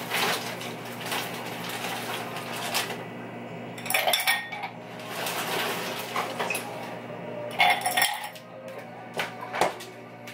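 Ice cubes clattering into a drinking glass at a refrigerator freezer: a run of rattling at first, then several separate sharp clinks of ice against glass.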